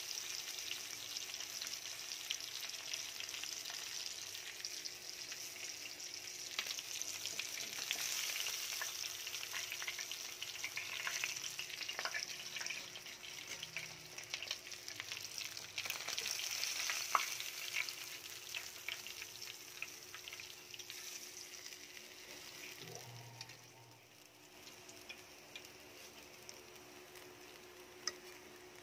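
Whole dalagang bukid (redbelly yellowtail fusilier) sizzling and crackling in hot oil in a frying pan, with a few light clicks. The sizzle dies down over the last few seconds.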